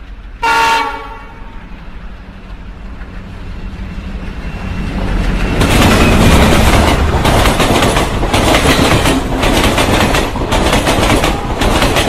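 A train locomotive sounds its horn once, a short blast about half a second in. Then the train's coaches run past the platform, the rumble building and turning into loud clattering over the rail joints from about five seconds in.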